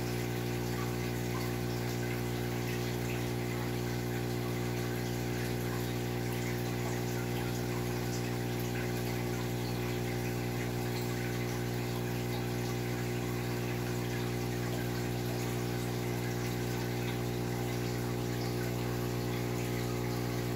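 Aquarium pump running steadily: a constant low hum with a stack of overtones over an even hiss of moving water.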